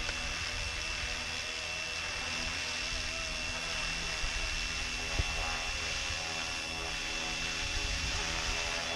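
Flywing FW450 electric RC helicopter flying overhead: the steady whir of its rotor blades with a constant high motor whine.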